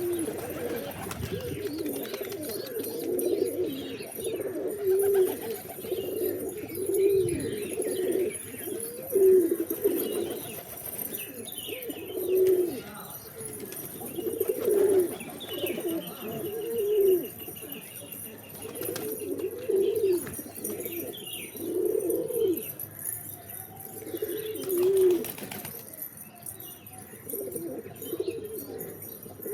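Pigeons cooing over and over, low calls that come every second or two, with faint higher calls in between.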